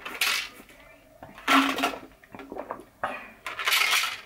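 Gulping a protein shake from a plastic shaker bottle: a few loud gulps and swallows about a second apart.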